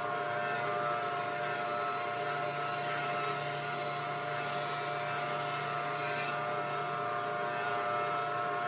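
An electric woodworking power tool running with a steady hum, with a higher hiss from about a second in until about six seconds in.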